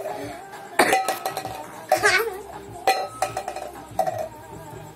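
Sharp clinks about once a second, each ringing briefly like struck metal, in a steady beat.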